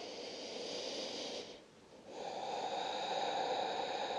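A woman's slow audible breathing into a close microphone: one long breath fades out about a second and a half in, and after a short pause a second long breath starts about two seconds in.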